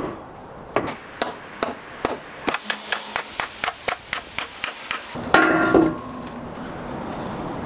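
Hammer blows knocking wooden chocks out from under a yacht's keel: a string of sharp wooden knocks, a few at first and then quickening to about three a second. About five seconds in comes a louder, longer sound.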